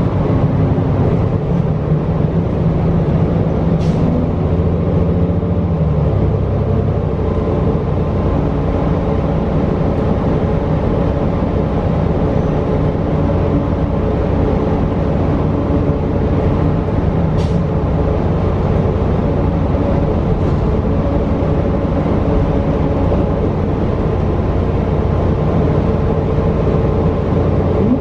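The Cummins L9 diesel engine and drivetrain of a New Flyer XD40 transit bus running steadily as the bus drives, heard from inside the passenger cabin. The engine note changes about six seconds in.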